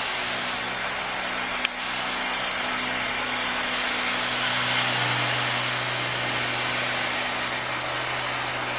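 Lawn mower engine running steadily, a loud racket with a broad hiss over a low engine hum; a single sharp click about two seconds in.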